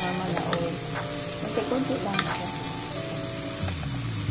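Mixed vegetables sizzling as they stir-fry in a non-stick pan, with a few clicks and scrapes of a wooden spatula turning them.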